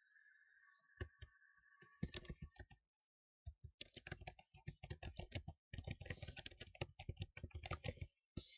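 Typing on a keyboard: a few scattered keystrokes, then a fast continuous run of key clicks for several seconds, ending in a short louder clatter. A faint steady high tone sounds under the first few keystrokes.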